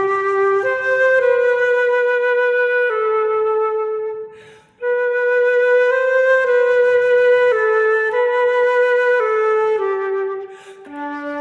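Solo flute playing a slow waltz melody in held notes that step up and down. The melody breaks off briefly twice, about four and a half seconds in and near the end.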